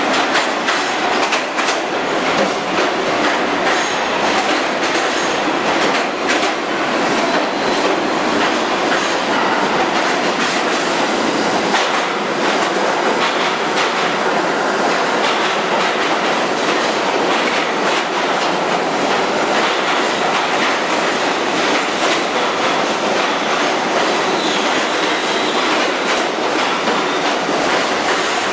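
New York City subway train pulling into an underground station, its cars rolling past along the platform. The rolling noise is steady and loud, broken by irregular clicks of the wheels over the rail joints.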